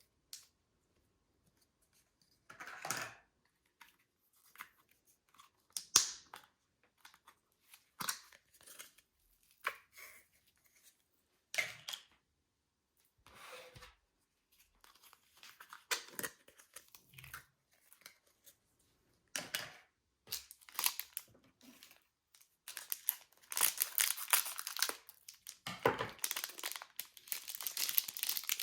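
Slime being mixed and squished by hand: scattered sticky crackles and pops, thickening into a dense run of crackling near the end.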